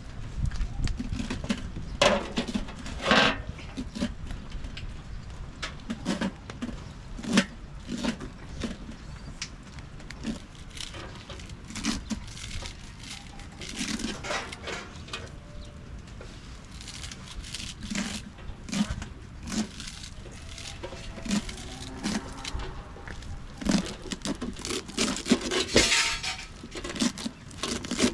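Irregular knocks and clinks of cooking work, pots and utensils being handled, with denser clatter about three seconds in and again near the end.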